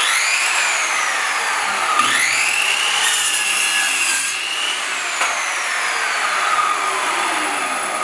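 GALAX PRO 185 mm circular saw (1200 W, 24-tooth blade) spinning up with a rising whine, then cutting across a wooden plank, its pitch dropping and wavering under load. From about five seconds in, the whine falls steadily as the blade coasts down after the cut.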